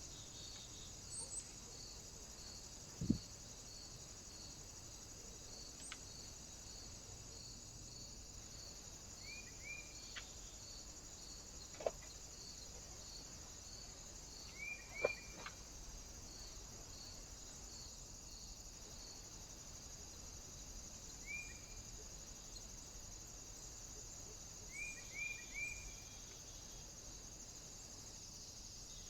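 Quiet outdoor trail-camera sound: a steady high hiss with a faint regular ticking, a few short bird chirps in twos and threes, and several sharp knocks, the loudest about three seconds in and again about fifteen seconds in.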